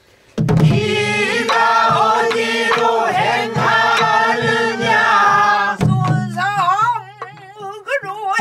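Korean Namdo folk singing with a wide, wavering vibrato, which starts about half a second in after a brief pause. It is kept in time by sharp strokes of a wooden stick on a buk barrel drum. Near the end the singing breaks into shorter wavering phrases between the drum strokes.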